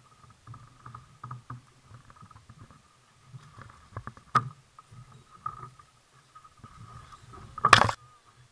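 Spinning reel whirring in uneven spurts as line is cranked in against a hooked fish, with low rumbling knocks against the kayak. Sharp clicks come about four seconds in, and a loud knock near the end.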